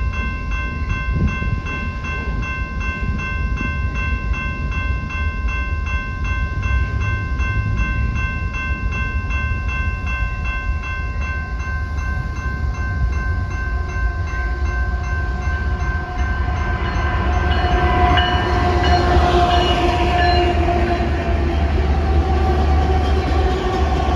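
A train running past with a heavy, steady low rumble. In the first half an evenly pulsing, bell-like ringing fades out. About two-thirds of the way in, the train gets louder, with held tones over the rumble.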